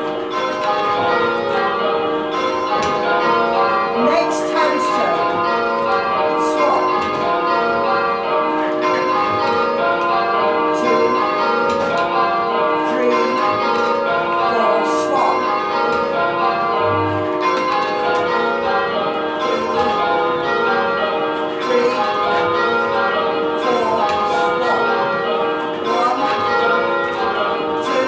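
Church tower bells rung full-circle in change ringing, heard from the ringing chamber below: a steady, even stream of overlapping bell strikes. The bells in thirds and fourths are making long places, striking four blows each before swapping at handstroke.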